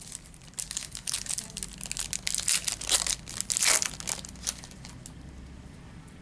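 Crinkling of a plastic trading-card pack wrapper being handled and torn. It starts about half a second in, grows louder toward three to four seconds, and dies away by about four and a half seconds.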